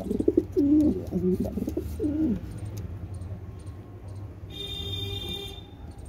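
Homing pigeons cooing: a run of low, warbling coos over the first couple of seconds, then a brief higher-pitched tone about three-quarters of the way through.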